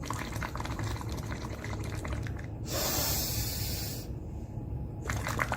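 Bubbling from someone blowing out steadily through a straw into a glass of water, lasting about two and a half seconds. Then comes a breath drawn in, and the bubbling starts again near the end.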